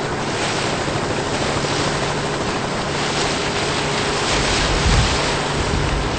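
Steady rush of wind and water on the harbour, heard on an open microphone from the water, with low wind buffeting on the microphone setting in about four seconds in.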